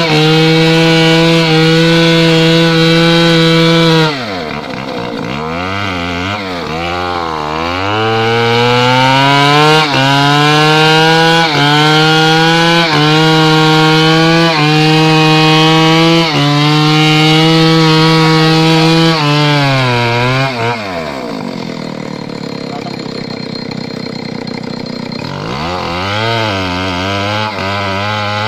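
Stihl 070 (MS720) two-stroke chainsaw cutting into the base of a large tree trunk at full throttle. About four seconds in it drops back and revs up and down. It then runs flat out again, its pitch dipping briefly under load about every second and a half, until it falls to idle about twenty seconds in and revs up again near the end.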